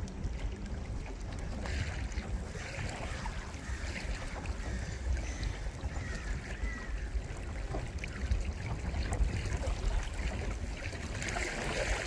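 Small waves lapping and splashing close to a microphone held just above the water surface, over a steady low rumble.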